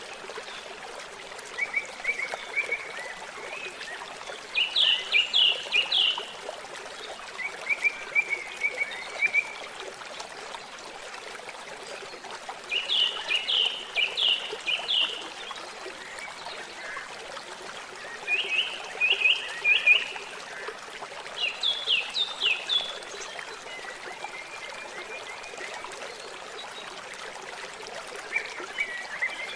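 Water trickling steadily. Over it, small animals call in repeated runs of five or six quick, sharp high chirps, with softer, lower trills in between.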